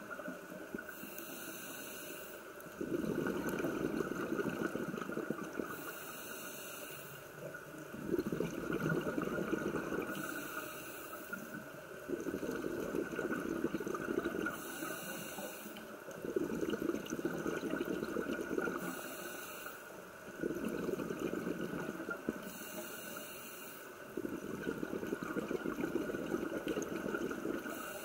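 Scuba diver breathing through a regulator underwater: a short hissing inhale, then a longer bubbling exhale. The cycle repeats about every four seconds.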